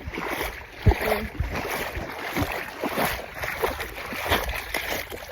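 Footsteps wading through shallow creek water, splashing at each step in an uneven rhythm, with one heavier thump about a second in.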